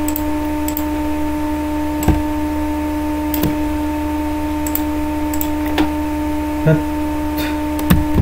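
Steady electrical hum with a handful of short, scattered clicks, mouse clicks while drawing in a paint program.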